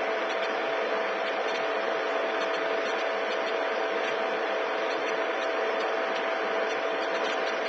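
Steady hiss with a constant mid-pitched hum and faint ticking: the background noise of old archive film playback.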